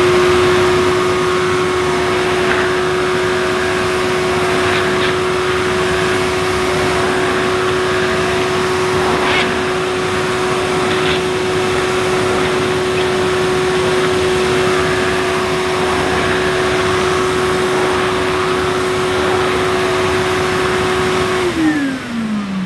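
Numatic Henry Hound vacuum cleaner running steadily at one even pitch, its turbo electric head brushing over carpet. Near the end it is switched off and the motor winds down, its pitch falling.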